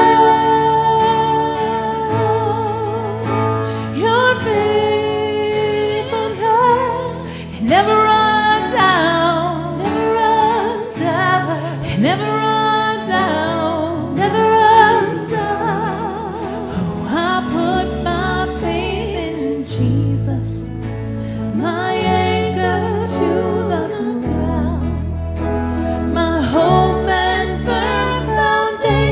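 Live worship band playing a gospel-style praise song, with a singer holding long, sliding notes over bass and instrument chords.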